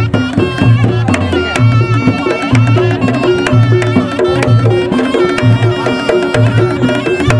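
Reog Ponorogo ensemble music led by kendang drums: deep bass beats land about every 0.8 s under quick drum strikes, with a reedy held melody above them.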